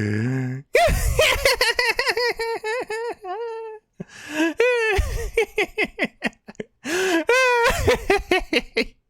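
High-pitched laughing in rapid 'ha-ha' pulses, about six a second, in three runs. It starts just after a held low tone cuts off under a second in.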